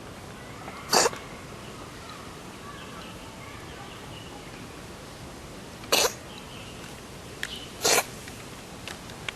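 A cat sneezing three times: one short, sharp sneeze about a second in, then two more later on, about two seconds apart.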